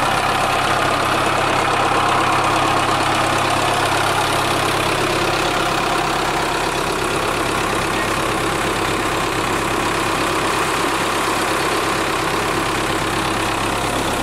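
Belarus 510 tractor's diesel engine running steadily while it drives a large tube-well pump through a drive shaft.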